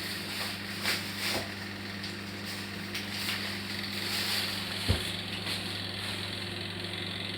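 Electric fan motor running with a steady low hum, with a few faint clicks and one short thump about five seconds in.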